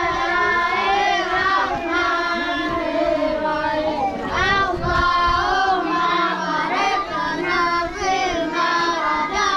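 A group of children singing together, several voices overlapping, with long held notes.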